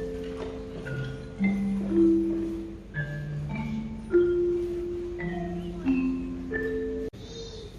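Tuned percussion, such as bells, playing a slow melody of single struck notes, each ringing on for about a second. The music cuts off abruptly about seven seconds in.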